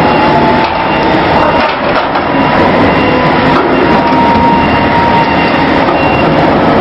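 Mobile harbour crane at work, a steady loud mechanical rumble and hiss with a faint whine wavering at one pitch.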